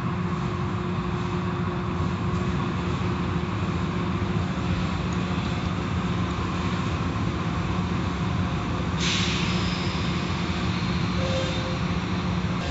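Automatic tunnel car wash heard from inside the car: a steady machine rumble and hum, with water spraying and cloth curtains and brushes swishing over the car. A louder hiss comes in about nine seconds in.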